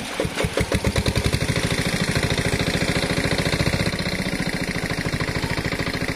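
Small engine of a portable water pump starting up. Its firing strokes come unevenly and speed up over the first second or two, then settle into a fast, steady beat.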